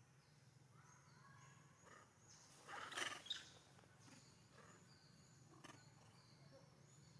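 A macaque's brief, harsh screech about three seconds in, over faint forest background.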